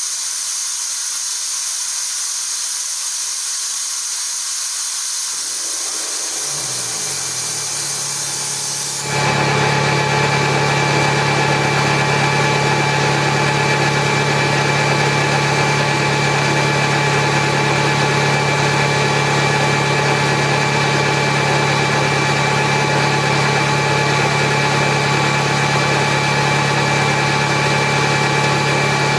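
Atlas Copco GX7FF rotary screw air compressor. It starts with a steady air hiss while a low hum rises in pitch, as the motor spins up. About nine seconds in, the hiss cuts off and the compressor settles into a louder, steady running hum.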